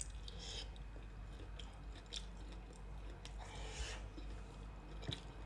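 A person biting and chewing a hot cheese-filled kielbasa sausage, with scattered small mouth clicks over a low steady hum.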